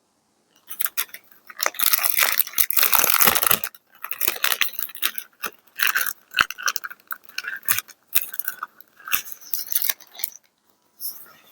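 Paper being handled and crumpled, crinkling and crackling close to the microphone: a dense crinkle for about two seconds, then irregular crackles and small clicks.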